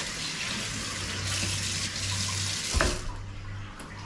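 Kitchen tap running over hands being washed in a stainless steel sink, then shut off about three seconds in, with a single thump as it stops.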